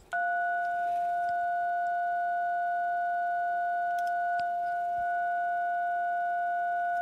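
DTMF keypad tone from a Baofeng handheld radio: two steady notes sounding together, held for about seven seconds, then cut off sharply. It is the test modulation while the transmitter's FM deviation is being measured. A couple of light button clicks come about four seconds in.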